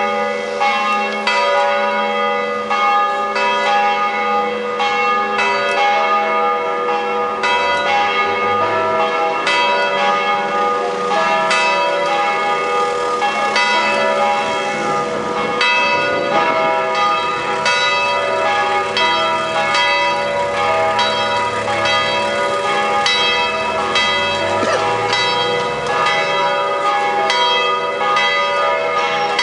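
A full peal of three swinging church bells, thought to be tuned to E, G sharp and B, ringing together. Strikes come continuously and overlap, each note ringing on under the next. This is the ringing that calls the faithful to the Saturday-evening Sunday mass.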